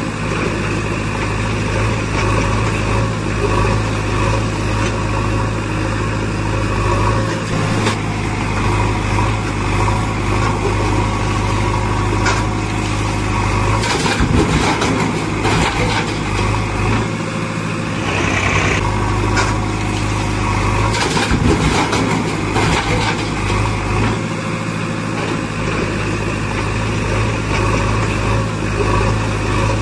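Engine idling steadily, an engine sound effect for the toy tractor and backhoe, with a few brief scraping or rattling noises about halfway through.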